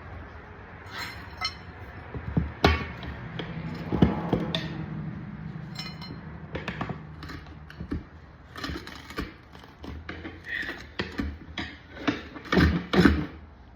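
Scattered knocks, clinks and thunks of metal tools and rim work as a studded ATV tire is broken down off its wheel, with a short low hum about four seconds in and a quick run of knocks near the end.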